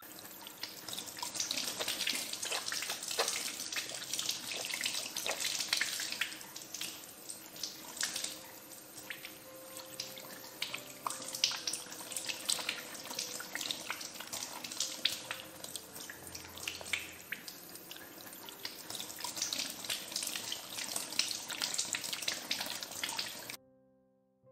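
Tap water running and splashing onto hands being rinsed and rubbed in a sink, with many small irregular splashes. It cuts off suddenly about a second before the end.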